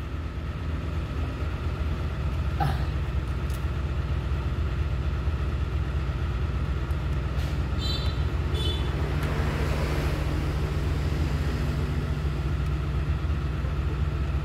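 Steady low drone of a diesel engine idling in the background, with a few faint clicks and two short high chirps about eight seconds in.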